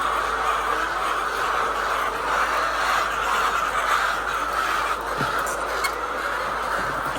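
A flock of hens in a poultry shed clucking together in a steady, continuous din, with a couple of faint clicks a little past the middle.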